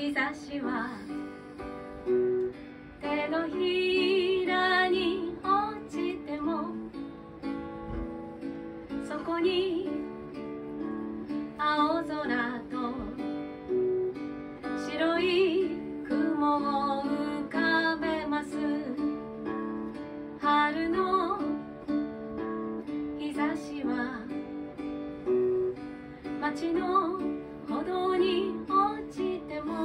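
A woman singing to her own strummed acoustic guitar, with sung phrases every few seconds over steady strumming.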